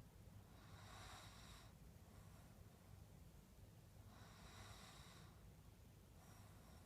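Faint breathing of a sleeping toy poodle: two soft, noisy breaths about three and a half seconds apart and a fainter third near the end, each with a thin high whistle, somewhere between sleep breathing and a light snore.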